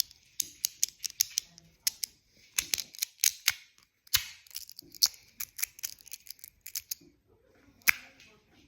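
Small magnetic clicker fidget toy clacking as its two halves are flipped and snapped together, in quick irregular runs of sharp clicks with short pauses. The loudest click comes near the end.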